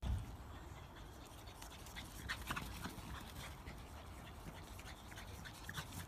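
Faint sounds of a small dog, with scattered short high-pitched squeaks over a quiet background.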